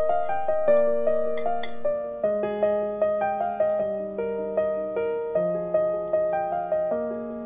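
Background piano music: a gentle melody of evenly paced notes, each dying away, over held lower notes.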